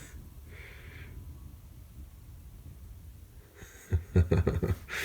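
A cat pawing and pouncing at a toy pushed under a door, a quick flurry of thumps and knocks about four seconds in, over a low steady background.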